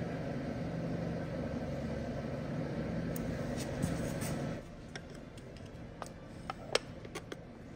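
A steady low hum that drops away about four and a half seconds in, followed by a few light clicks and knocks as the distributor cap, with its ignition wires attached, is handled and set onto the distributor.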